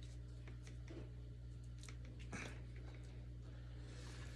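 Plastic parts of a Hoover WindTunnel upright vacuum being handled and pushed together: a few light clicks and knocks with soft crackling between them, the loudest about two and a half seconds in, over a steady low hum.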